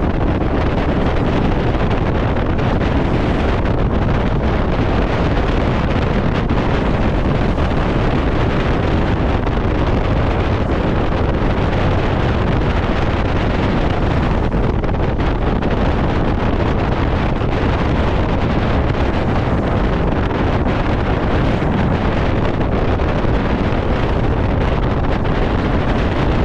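Steady rush of spray and bow wave along the hull of a 60-foot Symbol motor yacht running at speed through choppy water, mixed with wind noise on the microphone.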